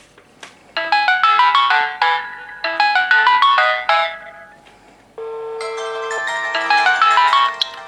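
Mobile phone ringtone melody: two quick phrases of bright electronic notes with short gaps between them, then a held tone that runs into a third phrase.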